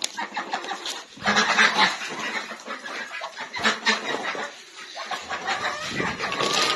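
A flock of backyard chickens and Muscovy ducks clucking and calling, many short overlapping calls at once.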